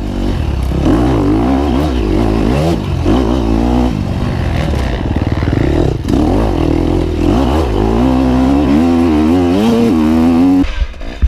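KTM dirt bike engine revving hard and backing off again and again as it is ridden through a rough woods section. It drops off suddenly near the end.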